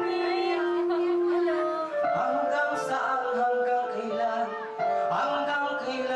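A song playing: a voice singing over instrumental backing, with a long held note in the first two seconds.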